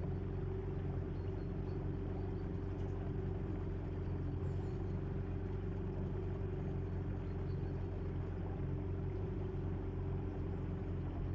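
A small boat's motor running at a steady speed, an even, unchanging engine hum.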